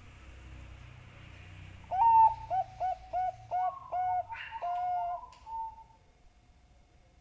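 Bangkok-strain zebra dove (perkutut) cooing: a quick run of about seven short coos starting about two seconds in, the first the loudest, ending on a longer held note. This is the perkutut's song used as a lure call to set other perkutut singing.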